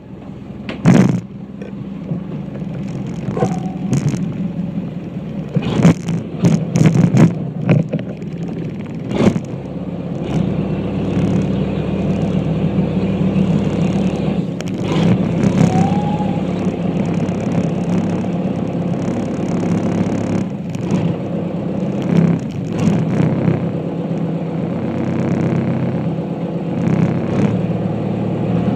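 Small ferry's engine running steadily. Several sharp knocks and clatters sound over it in about the first ten seconds.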